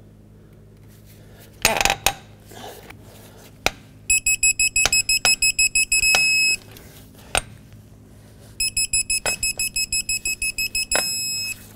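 Digital torque-angle wrench beeping fast as a head bolt is turned through its 90-degree pass, ending in a long steady beep at the target angle. This happens twice, on two bolts. Sharp clicks and a clunk come from the wrench and socket going onto the bolts.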